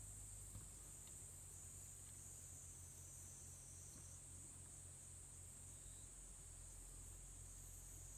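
Near silence with a faint, steady high-pitched insect drone and a low hum underneath.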